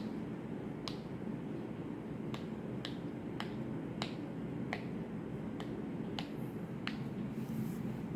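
Silicone pop it fidget toy being pressed bubble by bubble: about a dozen soft, sharp pops at an uneven pace, roughly one every half second to second.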